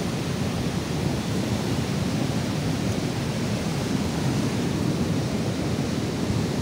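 Steady rushing of a flood-swollen river, an even noise with no breaks.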